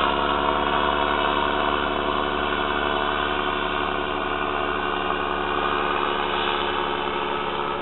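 Paramotor engine and propeller droning steadily, one even pitch throughout.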